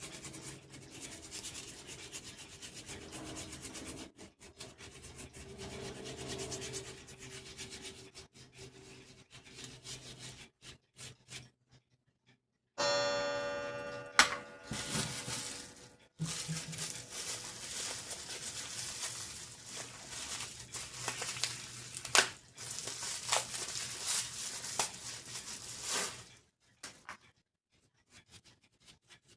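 Scrubbing and rubbing with a brush over cuckoo clock parts, in long stretches with short pauses and sharp clicks. About halfway through, a steady pitched tone sounds for about three seconds.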